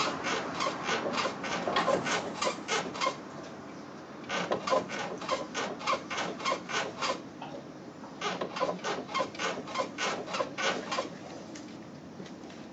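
Suspension of a 1986 Mazda 323 BF creaking: short, squeaky creaks about four a second in three runs, with a pause of about a second between runs. The creak is the suspension fault being shown.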